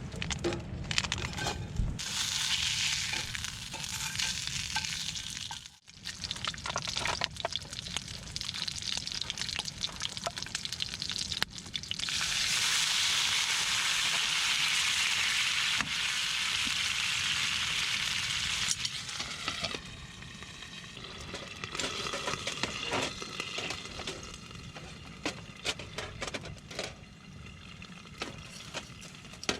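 Hamburg steak patties frying in a pan, sizzling with many small crackles. The sizzle swells to a loud steady hiss for several seconds in the middle, then settles back to a softer sputter with scattered ticks.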